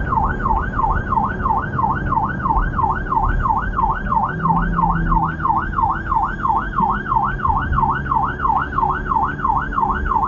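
Emergency vehicle siren on a fast yelp, its pitch sweeping up and down about three times a second, over low road and engine noise.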